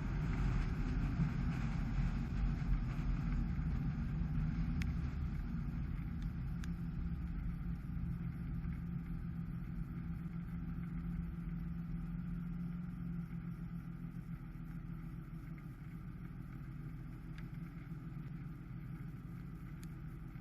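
Dacia Sandero Stepway on the move: a steady low rumble of engine and road noise that gradually gets quieter, with a few faint clicks.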